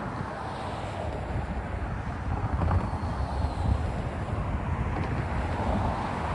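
Cars driving past over a road crossing, with steady tyre and engine noise and wind buffeting the microphone.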